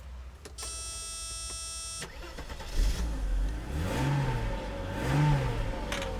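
A short electronic warning tone, then a car engine cranking and catching about two seconds in. Its speed swells and falls twice before easing down toward idle, a start on a car that has been failing to start.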